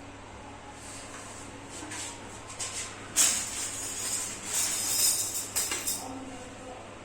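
Irregular clattering and rattling, starting about three seconds in and going on for about three seconds, with several sharp strokes.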